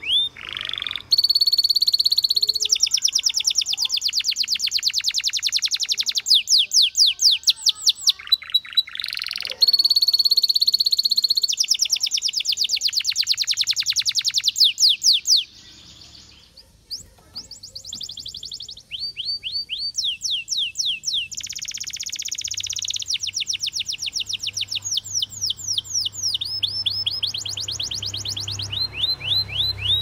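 Domestic canary singing a long song of fast trills, rapid runs of repeated rising chirps, with clear held whistles between them. It breaks off briefly about halfway through, then goes on trilling.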